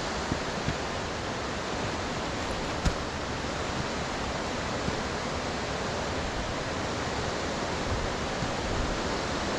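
Waterfall rushing steadily: water pouring over a wide rock ledge into the pool below, an even roar of falling water.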